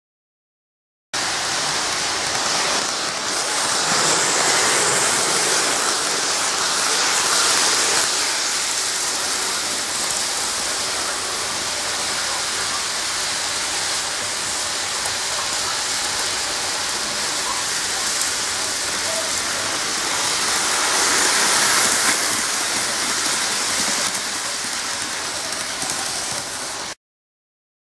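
N-gauge model Kintetsu train running on its track: a steady, even rattling noise of wheels on rails and motor that swells and eases a little as the train goes round. It starts about a second in and cuts off suddenly near the end.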